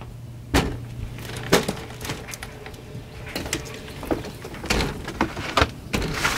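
Footsteps of rubber knee boots on wooden deck boards: separate hollow knocks, two about a second apart, then several more in quicker succession as the walker crosses the deck.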